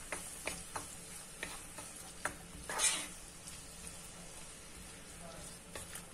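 Wooden spoon stirring chopped onions frying gently in oil in a non-stick pan: a faint, steady sizzle with scattered light taps and scrapes of the spoon on the pan, the loudest a longer scrape about three seconds in.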